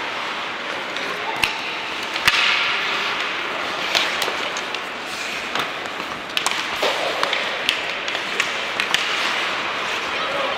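Ice hockey play: a dozen or so sharp clacks of sticks and puck, scattered irregularly, over a steady arena noise of skates and distant voices.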